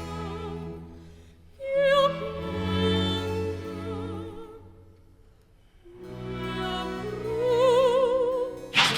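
Classical background music with operatic singing: long held notes with a wavering vibrato, in two phrases with a brief lull in between.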